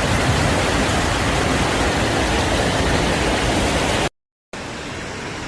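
Heavy rain pouring down in a dense, steady hiss. It cuts out for a moment about four seconds in, then comes back quieter.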